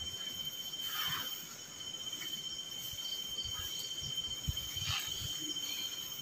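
Crickets chirping at night in a steady, high, continuous trill, with a few faint low thumps and rustles a little past the middle.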